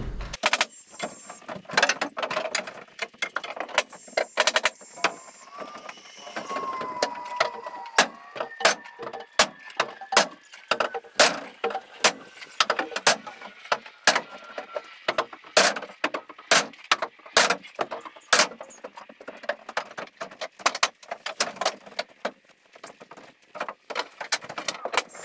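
Sharp knocks and clicks at irregular intervals, about one or two a second, from hand work on wood framing.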